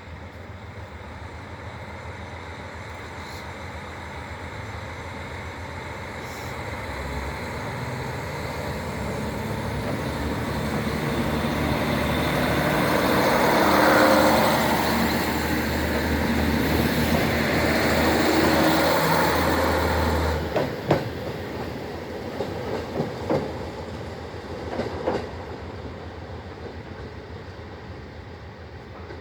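Two-car KiHa 40 diesel railcar set pulling away: the diesel engine throttles up and grows steadily louder as the cars draw level. About two-thirds through, the engine note drops off suddenly and a run of sharp clacks from the wheels over rail joints follows as the train moves off and fades.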